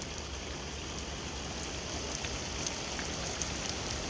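Steady rain falling during a thunderstorm, with scattered taps of single drops.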